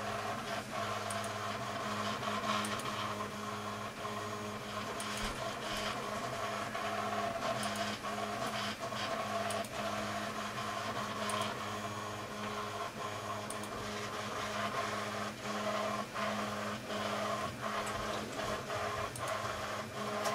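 Steady machine hum with irregular sharp clicks of a computer mouse as lines are selected and deleted in a CAD drawing.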